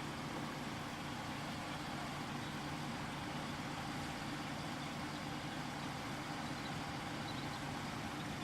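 A large engine idling steadily, with a constant low hum.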